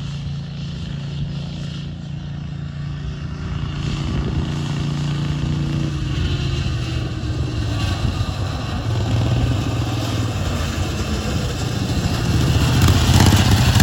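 Racing lawnmower's engine running steadily at speed, growing louder near the end.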